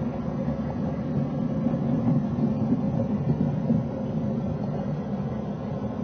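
Model train running on a layout: a steady low rumble with a faint steady hum above it.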